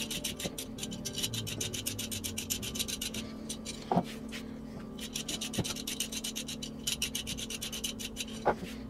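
A vegetable peeler scraping the skin off a raw carrot in quick rasping strokes, about four or five a second. The strokes come in two runs with a pause a little over three seconds in, and a few light knocks fall in the gaps.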